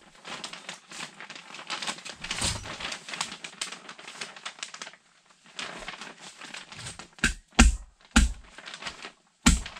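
Polyethylene vapor-barrier sheeting crinkling as it is pulled and smoothed over fiberglass insulation. Then a hammer strikes four times in the second half, nailing the plastic to the wall studs.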